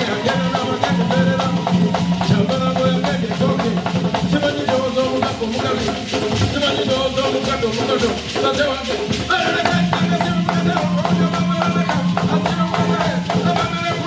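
Entenga royal drum ensemble of Buganda, a set of tuned drums struck with curved sticks, playing a fast, dense rhythm of pitched drum notes that form a melody, over a low sustained tone that drops out for a few seconds in the middle.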